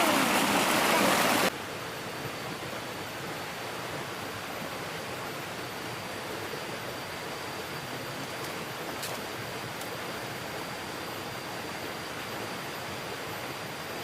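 Steady rush of flowing stream water. About a second and a half in it drops sharply to a fainter, even hiss.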